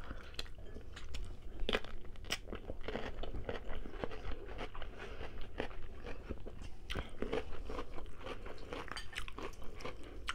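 Close-miked biting and chewing of a raw cucumber dipped in sauce: many sharp, crisp crunches scattered throughout.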